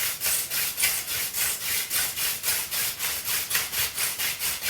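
Hand drill fire-by-friction: palms rubbing back and forth on a pithy plant-stalk spindle as it twirls against the fireboard, an even rhythmic scrubbing of about four strokes a second. This is the light 'float' stage that warms the board before smoke appears.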